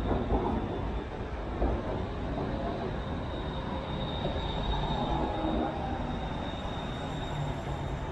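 Electric metro train running, a steady rumble with a thin high whine above it.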